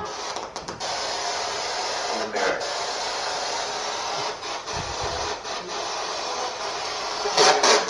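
Spirit box sweeping through radio stations: a steady hiss of static broken by short chopped fragments of sound, with a louder burst near the end.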